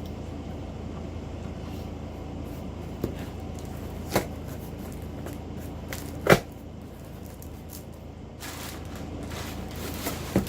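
Cardboard box and its packaging being handled and unpacked: a few sharp knocks and some rustling, the loudest knock about six seconds in, over a steady low hum.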